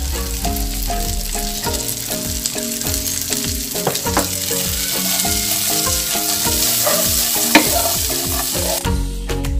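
Sweet corn kernels and green beans sizzling in a nonstick frying pan; the sizzling cuts off suddenly near the end. Background music with a steady beat runs underneath.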